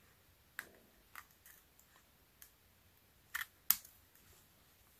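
Small craft scissors snipping sheer ribbon: a few scattered, quiet clicks, the two loudest coming close together past the middle.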